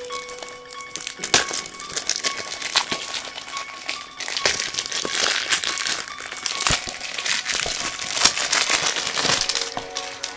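Plastic shrink-wrap crinkling and crackling as it is torn and peeled off a DVD case, in dense irregular crackles, with music playing faintly underneath.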